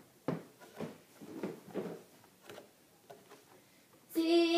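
Soft rustling and light knocks behind the empty puppet stage, then about four seconds in a child's voice starts singing a long held note.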